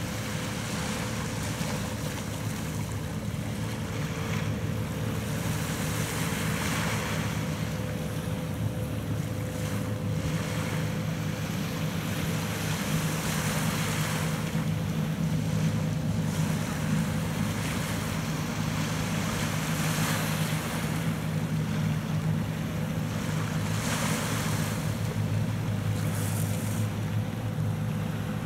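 Small inshore pot-fishing boat motoring past at speed: a steady engine drone, a little louder midway as it passes closest, over the hiss and splash of its bow wave, with wind gusting on the microphone.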